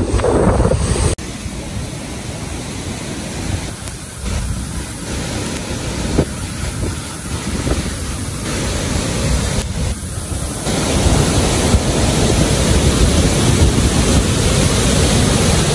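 A steady rushing noise with a heavy low rumble, changing abruptly a few times where short clips are joined.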